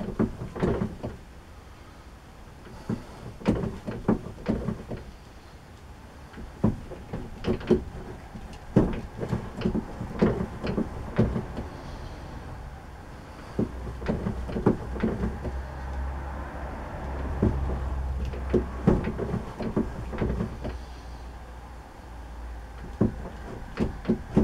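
Irregular metal clunks and knocks of a broach being worked through the bore of a small mild steel spacer, a few passes from finished. A low steady hum runs under the knocks through the middle stretch.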